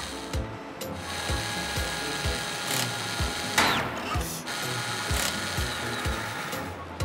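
Cartoon mechanical sound effects for a robotic claw arm moving an engine into place: clicking machinery with a swoosh about three and a half seconds in. Underneath is background music with a steady low beat about twice a second.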